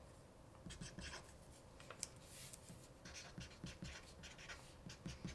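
Faint, quick strokes of a felt-tip marker writing on a sheet of paper.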